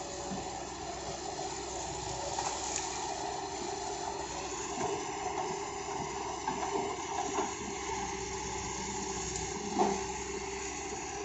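Kobelco excavator running steadily while working, with a few scattered knocks, the loudest about ten seconds in.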